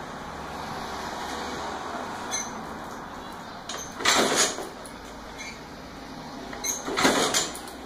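Kick-starter of a 1976 Vespa Rally 200's two-stroke single-cylinder engine kicked twice, about three seconds apart. Each kick is a short burst of mechanical noise as the freshly rebuilt engine turns over without catching.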